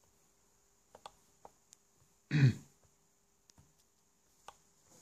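A few light, scattered clicks, as of a computer mouse while dragging files, and one brief throaty vocal sound from a man, falling in pitch, about two and a half seconds in; the vocal sound is the loudest thing.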